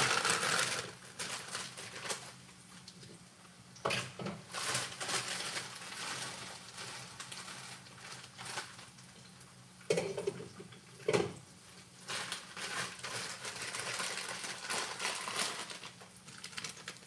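Kitchen handling sounds: a plastic bag of frozen okra crinkling as it is opened, and a few knocks of pans and utensils at the stove around the middle, over a steady low hum.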